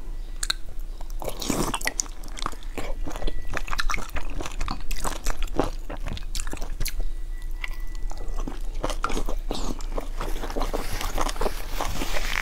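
Close-miked eating of a pan-fried dumpling: biting and chewing, many quick, irregular wet clicks and crunches.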